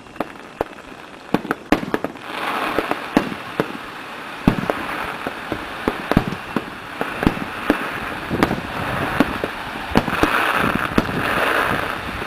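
Aerial fireworks shells bursting in a rapid, irregular string of bangs, over a dense noise of many small bursts that sets in about two seconds in and swells near the end.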